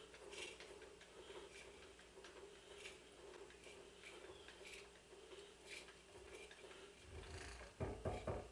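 Faint, scattered light metallic ticks and taps over a steady low hum as tools and the vise are handled on a milling machine table. A few dull knocks come near the end.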